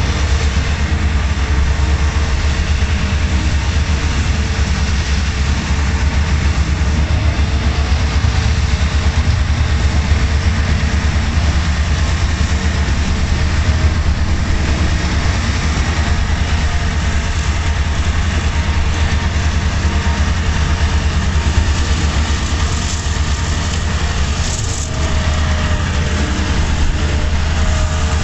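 Tractor engine running steadily under load while driving a hydraulic boom-arm mower cutting along a ditch bank: an even, low rumble with no breaks.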